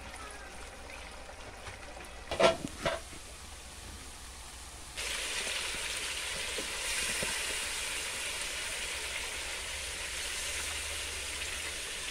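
Food frying in pans: a quiet sizzle of potato cubes, with two knocks against the pan about two and a half seconds in. About five seconds in, a louder, steady sizzle of chicken pieces frying takes over.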